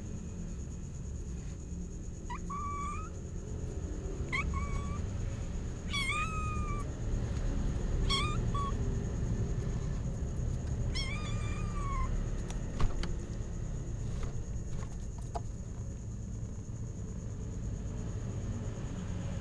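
Kitten mewing: about six short, high calls, each rising and falling in pitch, over a steady low hum. One sharp click about two-thirds of the way through.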